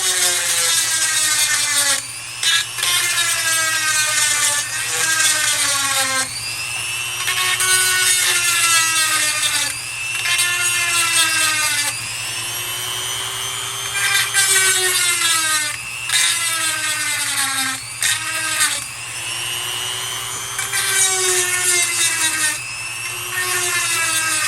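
Power chainsaw sharpener's grinding stone spinning and being pressed onto the chain teeth again and again, its high whine dropping in pitch under load and picking back up each time it is lifted, every second or two.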